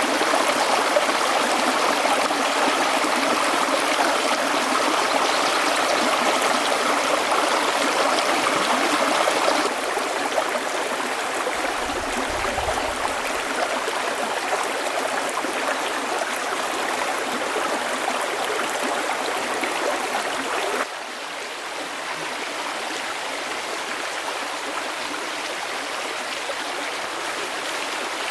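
Stream water flowing steadily. The level drops abruptly twice, about ten and twenty-one seconds in.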